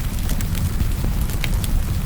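Wood fire crackling, with scattered sharp pops, over a steady low rumble and hiss of rain.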